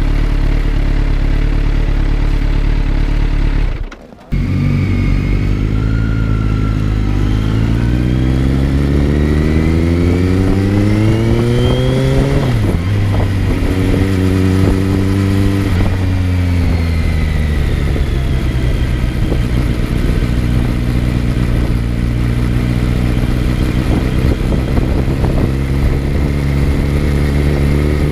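Kawasaki Z900's inline-four engine heard on board while riding. It runs steadily, cuts out briefly about four seconds in, then revs up through a gear. The pitch drops sharply at a shift about twelve seconds in, then the engine eases off, settles into a steady cruise and picks up again near the end.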